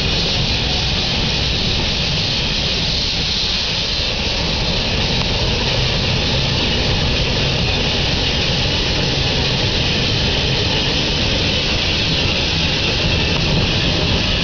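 Mount Washington Cog Railway steam cog locomotive No. 9 "Waumbek" moving slowly, giving a steady hissing rush with a low rumble underneath.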